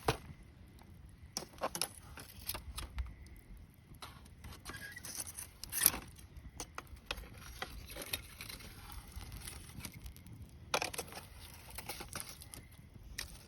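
Wood campfire crackling: irregular sharp pops and snaps over a low steady hiss, the loudest pop about six seconds in and a quick run of snaps near eleven seconds.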